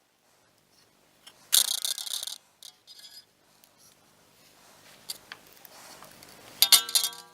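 Metal parts of a spring-winding setup handled by hand: a rattling scrape about a second and a half in, a few light clicks, then a metal rod or spring struck near the end so that it rings.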